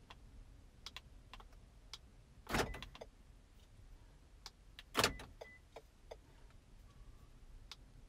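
A car's power door locks clunking twice, about two and a half seconds apart, as the smart key fob's lock and unlock buttons are pressed, with a few faint clicks in between.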